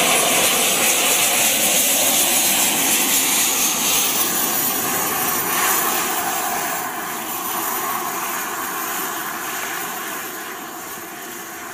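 Twin miniature turbine jet engines of a radio-controlled F-14 Tomcat model running: a loud rush with a thin high-pitched whine on top, fading gradually.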